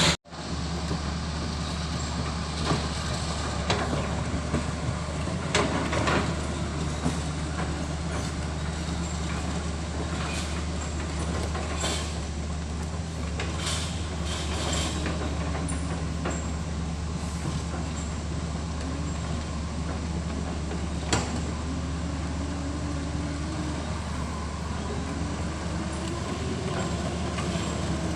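Heavy machine engine running steadily with a low drone, with a few sharp knocks scattered through it.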